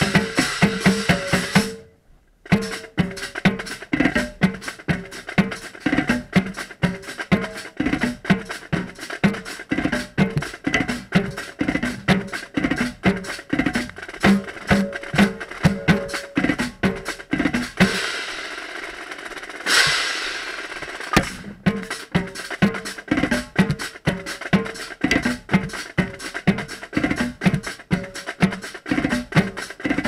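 Marching drumline playing a cadence, with a set of five marching tenor drums (quints) struck up close in fast stick patterns; the heads are wet from rain and sound dead rather than ringing. The drumming stops briefly about two seconds in, and again for about three seconds past the middle, where a hissing wash swells and fades before the rhythm comes back.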